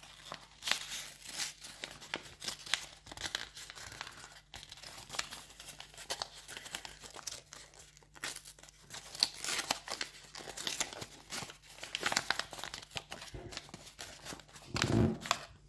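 A folded sheet of white paper rustling and crinkling in the hands as it is opened out, with irregular crackles and scrapes and a spell of tearing as the paper wallet rips.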